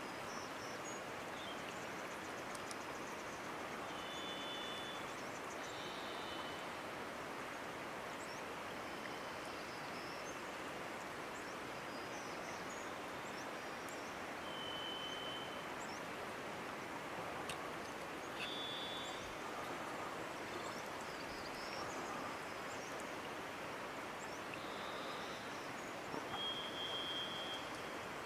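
Steady outdoor background hiss, with short high chirps every few seconds that sound like small birds calling.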